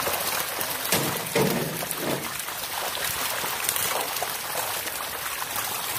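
A crowded mass of golden catfish thrashing and splashing in shallow water: steady churning water noise with many small wet slaps throughout.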